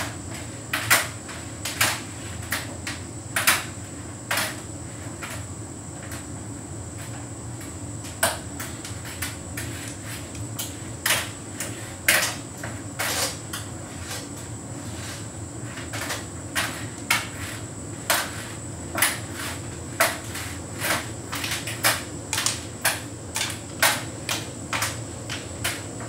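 Hotpoint heat pump tumble dryer running: a steady motor and fan hum under irregular knocks and clicks of the load tumbling in the drum, with a faint high steady whine.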